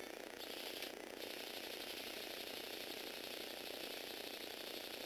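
Small Tomy Aero Spider electric motors running a Lego Technic four-wheel-drive model's plastic gear trains and chain drive: a steady whirring, rattling gear noise. It briefly gets higher and a little louder about half a second in.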